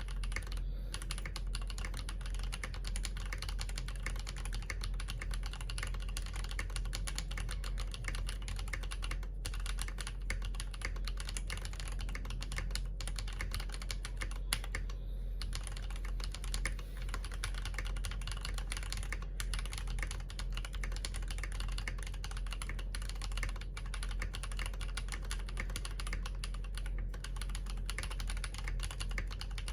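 Continuous fast typing on an Akko MOD001v2 mechanical keyboard built with Yok Panda tactile switches on a polycarbonate plate, keystrokes clattering densely with only brief pauses.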